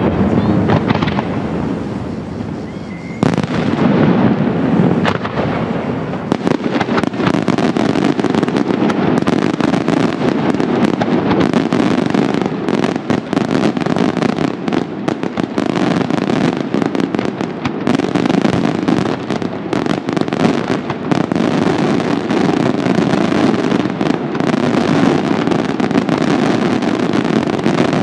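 Italian daytime fireworks (diurno) going off: after a lighter first few seconds, a sudden loud burst starts a dense, unbroken barrage of rapid crackling reports from the bursting shells.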